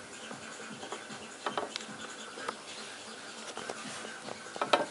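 Scattered light clicks and scratching as fingers handle an XSPC dual-bay pump reservoir, with a quick run of louder clicks near the end.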